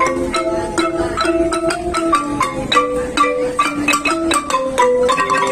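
Salvadoran wooden marimba played by several players at once with mallets: a continuous tune of quick, rapidly struck notes, with melody notes sustained by fast repeated strokes.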